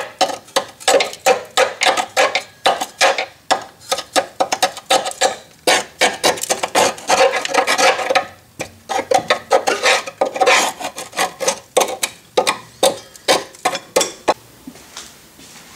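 A metal tool scraping and tapping on the rusty upper spring seat of a Volvo V70's rear suspension, a quick run of sharp scratchy strokes, two or three a second, with a short pause a little past halfway, stopping near the end. The strokes are testing how badly corroded the seat is.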